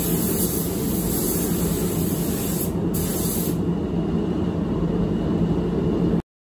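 Air spray gun hissing as it sprays clear coat onto a car fender, with a short break near three seconds in; the hiss stops about three and a half seconds in. A steady low rumble runs underneath until the sound cuts off just before the end.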